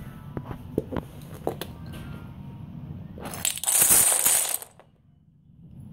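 A tower of stacked dominoes collapsing: after a few light knocks, about three seconds in comes a loud clatter of dominoes spilling onto a hard floor, lasting about a second and a half.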